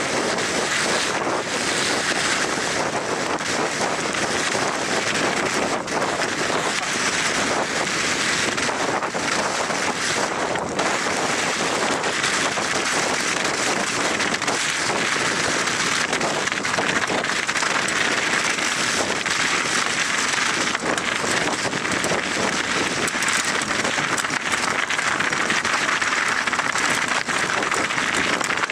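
Steady rush of wind on the microphone mixed with the tyres of a Moots MootoX YBB 29er mountain bike churning through wet hail slush on a fast descent, with a few faint knocks.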